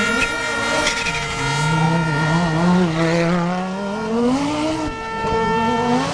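Rally car engine running hard at speed, revs dropping about a second in, holding, then climbing again near the end.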